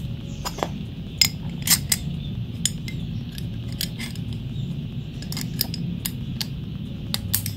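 Small sharp metallic clicks and clinks of a steel utility-knife blade and its screw and spring being handled and fitted into the cast aluminium handle of a Deli DL4260 utility knife. There is a cluster of clinks about a second in and a couple more near the end.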